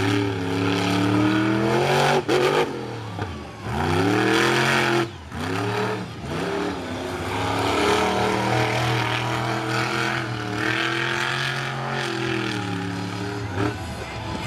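Monster truck engine revving hard over and over, its pitch swinging up and down, with the throttle snapped shut several times for brief dips, while the truck spins circles in sand.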